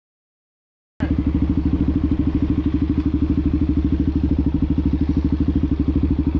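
After about a second of silence, a Suzuki DR-Z motorcycle's single-cylinder four-stroke engine runs at steady revs with an even, rapid pulsing.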